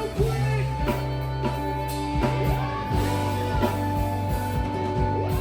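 Background music: guitar with drums and a steady beat.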